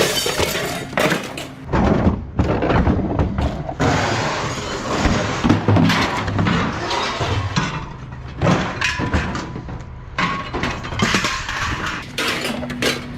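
Scrap metal being unloaded onto a scrapyard pile: repeated crashes, clanks and thuds of metal pieces hitting metal, over a steady low hum.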